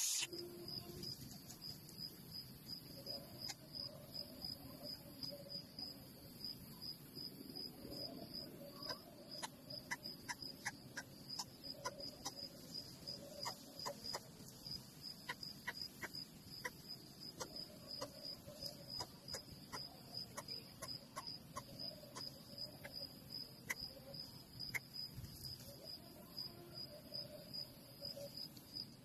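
Cricket chirping steadily, a high pulse repeating about twice a second, with scattered soft clicks.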